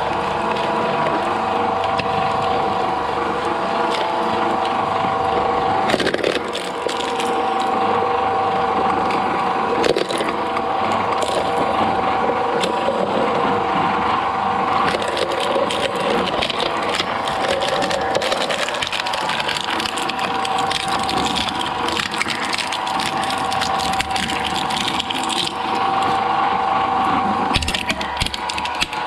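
Industrial shredder machine running, its drive giving a steady whine under continuous crunching and cracking as material is torn apart between its blades.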